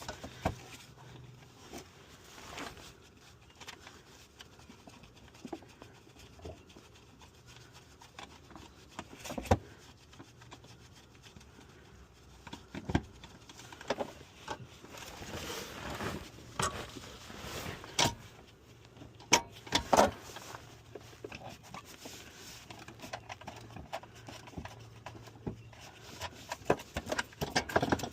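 Hand work on car parts: scattered sharp clicks and knocks with rubbing and scraping in between, as parts and hardware are handled during a shifter reinstall.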